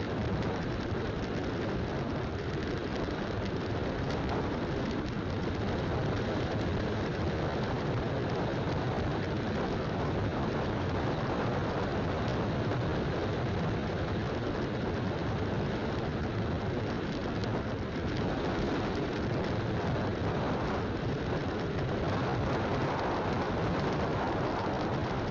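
Steady rush of wind and road noise from a moving motorcycle, picked up by a camera mounted on the bike.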